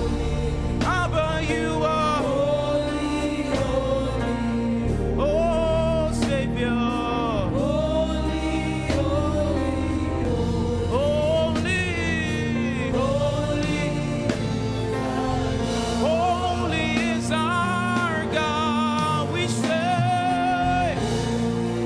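Gospel worship music: singing voices, with a choir sound, over steady keyboard-like instrumental accompaniment and bass.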